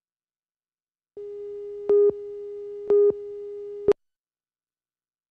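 Broadcast slate countdown tone: a steady electronic beep starts about a second in. It jumps louder in two short pips a second apart, gives a brief final blip, and cuts off suddenly.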